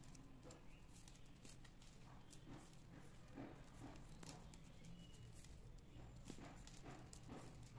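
Faint, irregular clicks and rustles of stiff plastic weaving wire strands being handled and pulled tight as a knot is tied.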